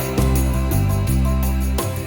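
Instrumental background music with a strong, steady bass and notes that change about every half second.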